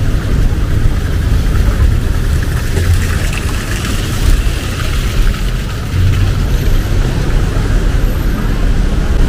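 Road traffic on a rain-wet city street: a steady low engine rumble with tyre hiss, the hiss swelling briefly a few seconds in as a vehicle passes closer.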